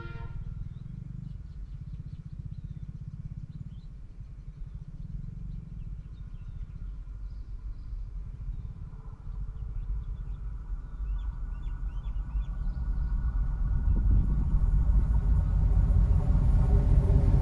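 Twin ALCo WDM-3A diesel locomotives approaching under power, their low chugging engine rumble growing steadily louder. About halfway through, a higher steady engine tone joins in and keeps building.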